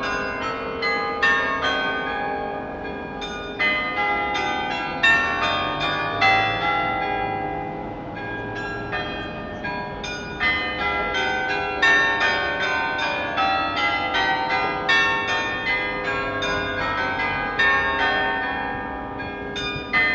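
Atkinson's Carillon, a 23-bell carillon played by hand from a lever console, ringing a tune of quick bell strikes whose tones ring on and overlap. The strikes thin out briefly about seven to nine seconds in, then come thick again.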